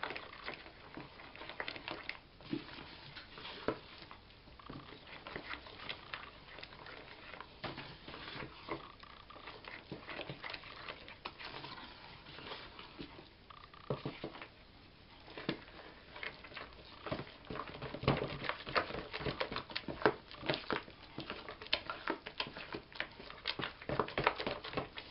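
A spoon stirring and scraping thick yeast dough in a plastic bowl as flour is worked in: irregular soft clicks, scrapes and squelches, busier and louder in the last third.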